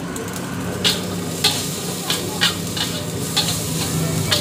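A metal spatula scraping and knocking against a steel wok about twice a second, starting about a second in, over the sizzle of food frying in the wok.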